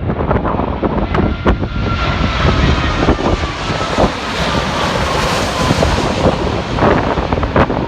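Jet airliner on landing approach passing by, its engine noise swelling to a peak about five seconds in while a thin whine slides slowly down in pitch. Strong wind buffets the microphone throughout.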